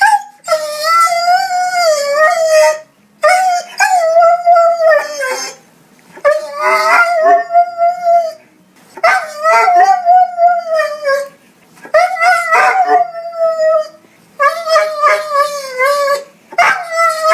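A dog howling and crying in a string of about seven drawn-out, wavering calls, each about two seconds long with short pauses between.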